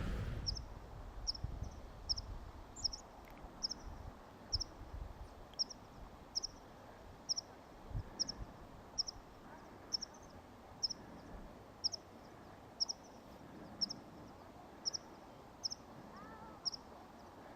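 A small bird calling the same short, high, thin note over and over at an even pace, about three calls every two seconds. A few soft low thumps sound under it, and a fainter falling whistle comes near the end.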